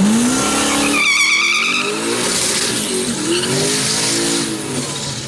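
Street drag car doing a burnout. The engine revs up and the rear tyres let out a high, wavering squeal for about a second. The engine then keeps revving up and down with the tyres spinning, easing off near the end.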